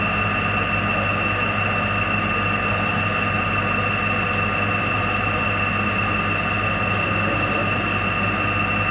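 A milling machine runs steadily while centre drilling, with a steady high whine over a low hum.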